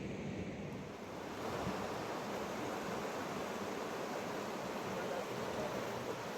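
Fast mountain river water rushing, a steady noise without pitch that grows fuller and slightly louder about a second in.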